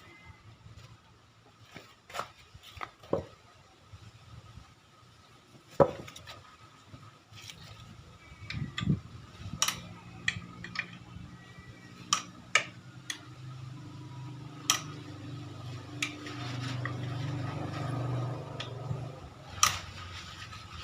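Scattered sharp metallic clinks and knocks of tools and parts being handled during motorcycle repair. A low steady hum comes in about halfway and grows louder toward the end.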